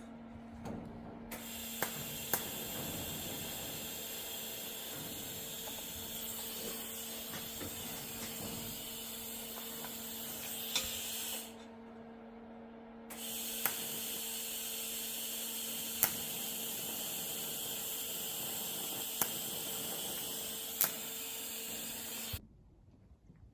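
TIG welding arc hissing steadily on stainless steel exhaust pipe, struck and stopped twice, with a steady low hum from the welder underneath and a few sharp clicks.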